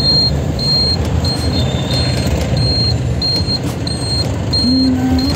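Mahindra Thar driving, with a steady engine and road rumble, and a short high electronic beep repeating about every two-thirds of a second. A car horn sounds briefly near the end.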